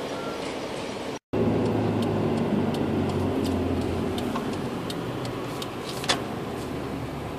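Wind noise on the microphone, then after a sudden cut the steady drone of a car driving on a highway, heard from inside the cabin, with scattered light ticks. The R8's own engine cannot be heard.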